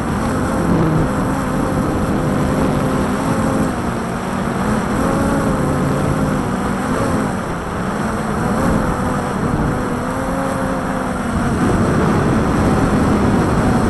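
Walkera Tali H500 hexacopter's motors and propellers humming, their pitch wavering up and down, under heavy wind rumble on the microphone.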